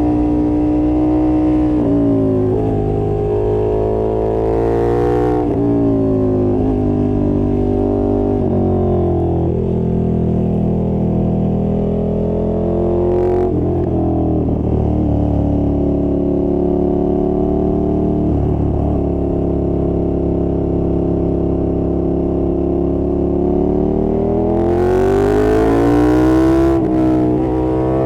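KTM 1290 Super Duke R's V-twin engine running at road speed, the revs easing down and holding lower through the middle, then climbing again under throttle near the end.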